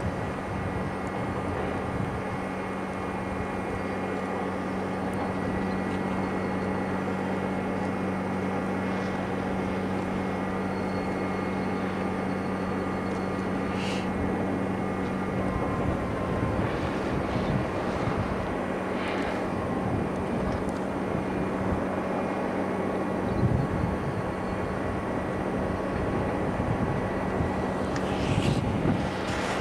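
A steady mechanical drone, like a distant engine or machine, under a wash of outdoor noise; a hum in it fades out about halfway, and a few short ticks come near the middle and near the end.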